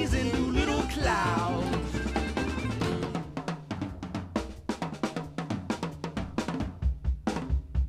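Americana band recording in which the pitched instruments drop away about three seconds in, leaving a drum-kit break. Snare and bass drum hits keep a steady beat, with the kick drum strongest near the end.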